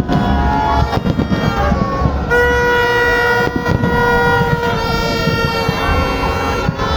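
A horn blows one long steady note, lasting over three seconds from about two seconds in, over loud crowd noise and voices.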